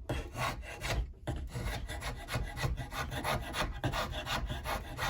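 Hand tool scraping and shaving wood off a wooden tool handle in quick, even strokes, about three a second, taking down a high spot to fit the handle into a cant hook's metal collar.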